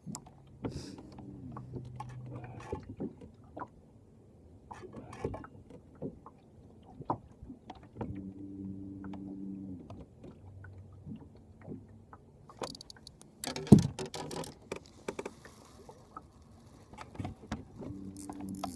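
Knocks and clicks on a small fishing boat, with a low motor hum that comes and goes in spells of one to two seconds, rising and falling in pitch as it starts and stops. A loud thump stands out about fourteen seconds in.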